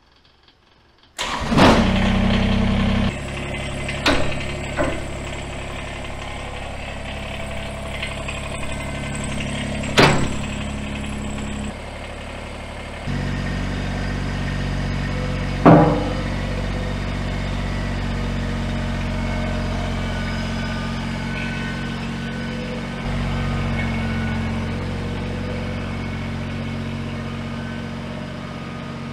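Kubota BX23S compact tractor's three-cylinder diesel engine starting about a second in, then running steadily. Its note steps up and down several times as the throttle changes, and a few sharp clunks stand out, the loudest about ten and sixteen seconds in.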